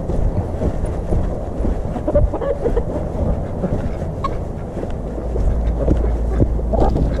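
Wind rumbling on a body-worn camera's microphone, with a few short poultry calls over it.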